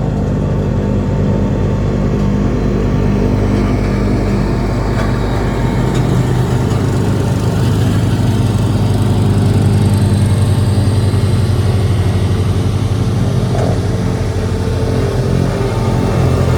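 Single-drum vibratory road roller's diesel engine running steadily under load during soil compaction, with a strong low hum that grows a little louder midway through.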